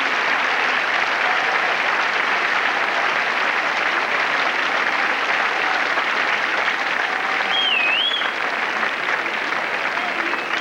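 A large tennis crowd applauding steadily, a dense sustained clapping. About three-quarters of the way through, a brief wavering whistle rises and falls over the applause.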